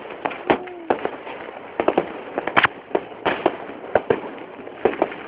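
Fireworks going off: many sharp bangs and cracks at irregular intervals, with a cluster of louder ones in the middle.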